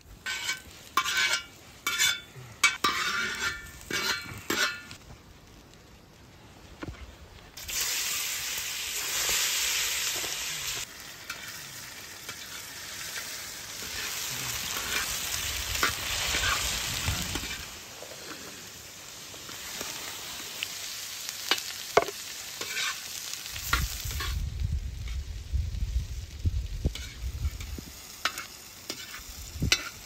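Knife strokes knocking on a wooden cutting board in the first few seconds, then diced potatoes frying in hot oil in a large wok over a wood fire: a dense sizzle that starts suddenly about eight seconds in and fades after a further ten seconds, stirred with a metal ladle. A low rumble near the end.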